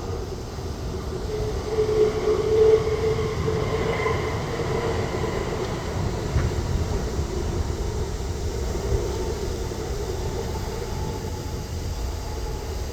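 Jet airliner engines running: a steady heavy rumble with a droning whine over it.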